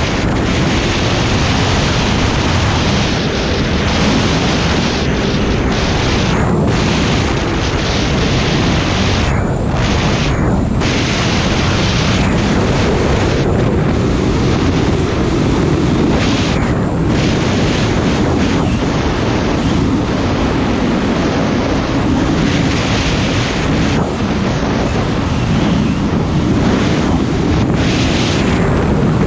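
Snowmobile running steadily at trail speed, its engine drone mixed with heavy wind rumble on the camera microphone, with the engine pitch wavering slightly as the throttle changes.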